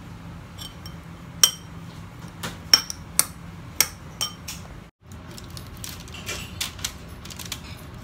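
A metal spoon clinking sharply against a ceramic bowl, about six times, while tossing sliced fennel in olive oil. After a break near the middle come softer rustles and light taps as the fennel is tipped from the bowl onto baking paper.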